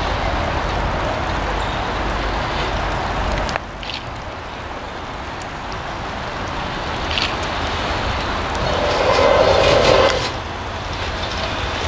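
Krupp fireless steam locomotive moving slowly on yard track. A steady hiss of steam exhaust stops abruptly about three and a half seconds in. Then the running sound of its wheels on the rails grows louder as it comes close, with a few short squeaks, and eases off just before the end.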